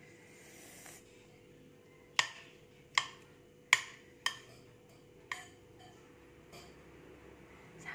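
Metal spoon clinking against a ceramic plate as food is scooped up: a run of sharp clicks, four strong ones in quick succession about two seconds in, then a few softer ones.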